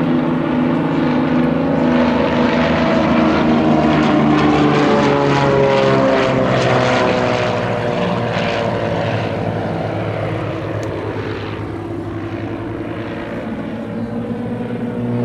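Several piston-engine propeller aerobatic planes flying past in formation. Their engine drone swells to a peak a few seconds in, then drops in pitch and fades as they pass. The note rises again near the end.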